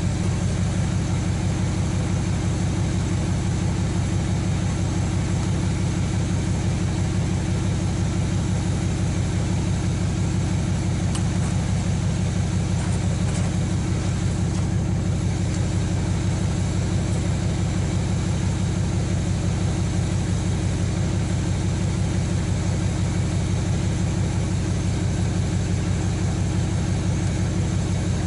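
An engine idling steadily and evenly, with a fine, rapid firing rhythm.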